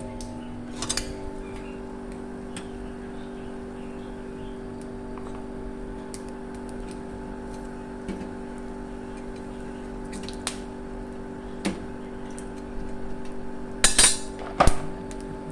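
Cookware clinking and clicking as chestnuts are tended over a flame for roasting: scattered small clicks, then two loud sharp clinks near the end, over a steady low hum.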